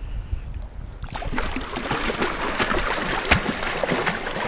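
Water splashing and churning in shallow river water as a released steelhead kicks away. It starts abruptly about a second in, with a low rumble before it.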